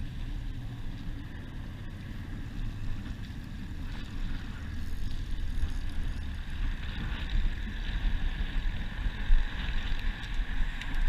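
Wind buffeting the microphone, a steady low rumble, with a hiss that grows louder about halfway through.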